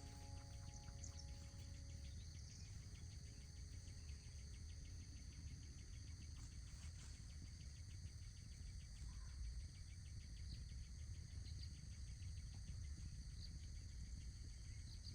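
Insects calling steadily: a fast, even pulsing chirp with a steady high whine over it, and a few brief bird chirps, all over a faint low rumble.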